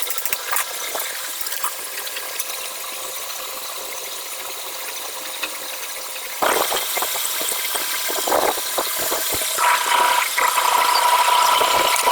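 Homemade power tool built from a washing-machine spindle, run as a grinder or milling cutter. It first runs with a steady high hiss. About six and a half seconds in it turns louder, with irregular knocks and rattles as it works, and a steady whine joins near the end.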